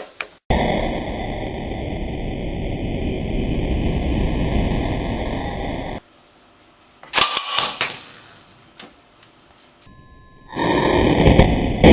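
A loud, steady rushing noise that cuts off suddenly partway through. About a second later there is a short cluster of sharp cracks and knocks, and the rushing noise starts again near the end.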